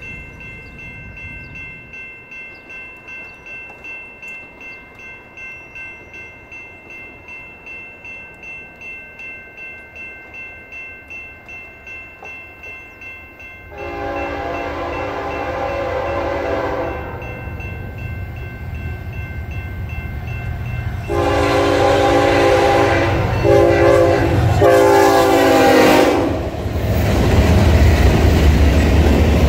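BNSF diesel freight locomotive horn sounding one long blast about halfway through, then three more close together a few seconds later. The train then runs close past, its engines rumbling and wheels clattering, and this is the loudest part. Before the horn there is a steady ringing that pulses about twice a second.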